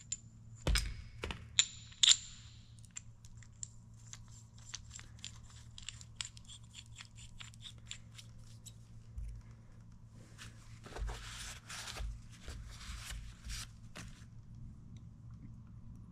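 Small metal clicks and clinks of a seal driver being handled, its adapter disc swapped on the handle. There are a few sharper knocks in the first two seconds, then a run of light ticks, then a few seconds of rustling and scraping about ten seconds in.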